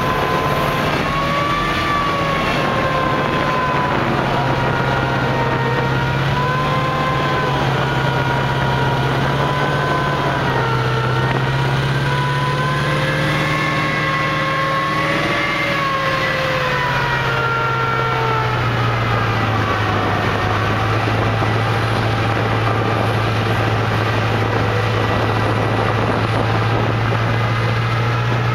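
USMC amphibious assault vehicle's diesel engine and tracks, heard from on top of the moving vehicle: a steady loud drone with a higher whine that wavers up and down in pitch. The drone drops a little in pitch about two-thirds of the way through.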